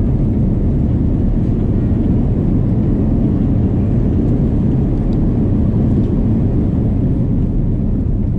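Airbus A330 cabin noise on arrival: a loud, steady low rumble of engines and airflow heard from inside the cabin.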